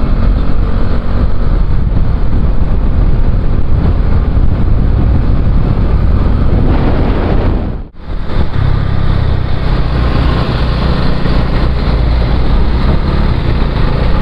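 Motorcycle on the move, its engine mixed with heavy wind rumble on the microphone. The sound cuts out for a moment about halfway through.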